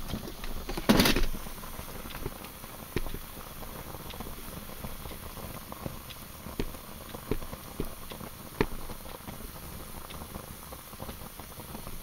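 Fire Dragon solid fuel burning hard inside a Swiss Army stove: a faint steady hiss of flame with scattered small crackles and pops. A louder short burst comes about a second in.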